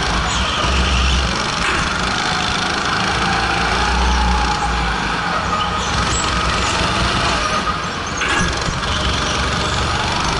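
Go-kart engine running hard, heard from onboard as the kart laps, its note rising and falling through the corners, with a brief dip about eight seconds in.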